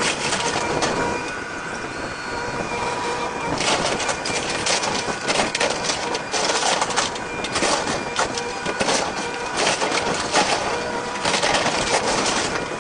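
Excavator running with a steady whine while a house is torn down, wood and debris cracking and crunching in heavier spells about four seconds in, in the middle, and near the end.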